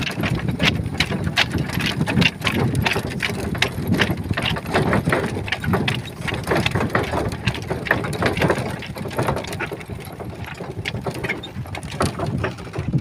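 Horse-drawn farm cart rolling at a walk over a rough dirt track: a steady rumble from the cart with frequent irregular rattles and clinks from the cart and the horse's chain traces.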